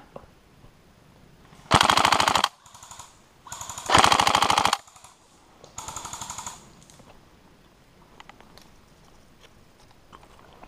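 Airsoft guns firing on full auto: a fast, even rattle of shots in two loud bursts of under a second each, with two fainter bursts between and after them.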